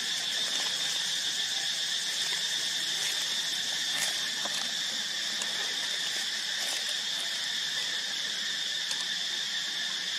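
Steady, high-pitched insect chorus droning without a break, with a faint click about four seconds in.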